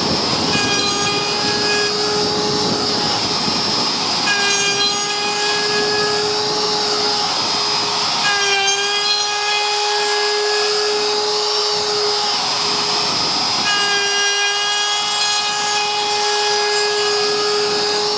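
Electric router running steadily, with a constant whine, as it flattens a bur oak slab on a router sled jig. The pitch shifts slightly about 4, 8 and 13 seconds in.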